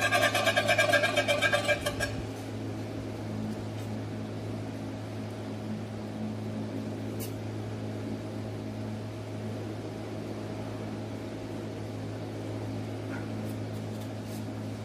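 Steady low machine hum, likely the wall printing machine idling. A louder wavering pitched sound stops about two seconds in.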